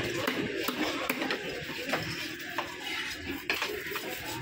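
A heavy butcher's knife chopping through a grouper onto a wooden log block: about half a dozen sharp, irregular knocks, over a steady market background hiss.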